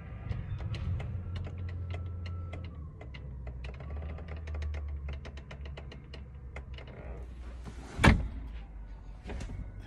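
Steady low hum inside a semi-truck's sleeper cab, with scattered light clicks and rattles, and one loud sharp knock about eight seconds in.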